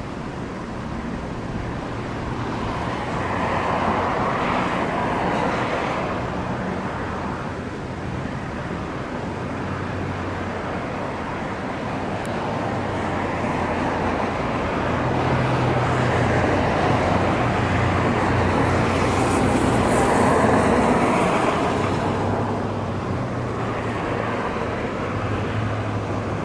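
Aircraft engines on approach swell louder and fade, twice, over gusty wind buffeting the microphone, with a low steady hum underneath.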